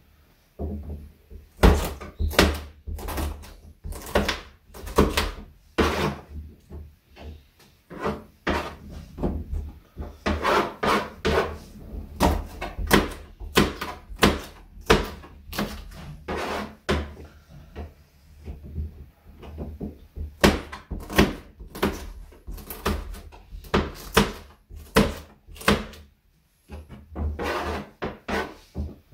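Kitchen knife chopping green chili peppers on a cutting board: repeated sharp knocks about two a second, in runs with short pauses between them.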